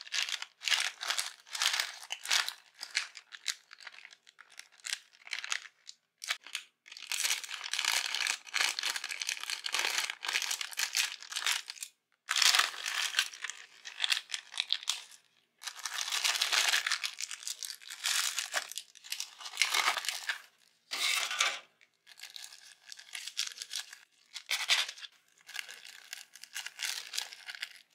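Plastic packaging of an instant noodle pack crinkling and tearing as it is opened and handled, with the noodle block's clear plastic tray and the inner packets crackling. It comes in irregular bursts with short pauses between them.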